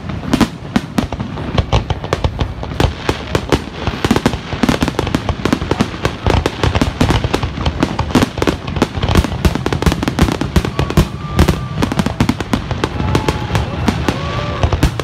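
Aerial fireworks shells bursting in rapid succession: a dense, unbroken string of loud bangs, many a second, with hardly a pause.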